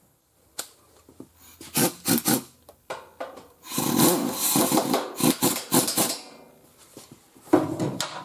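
Compact pneumatic wrench running in short trigger bursts as it drives in a front fender mounting bolt: a few quick blasts, then a sustained rattling run of about two seconds, then one more brief burst near the end.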